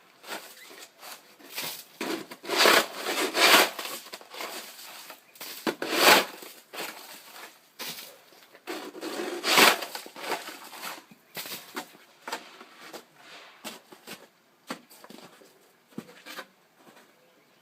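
Steel shovel chopping and scraping at hard-packed snow and ice, in irregular crunching strokes, a few of them much louder than the rest.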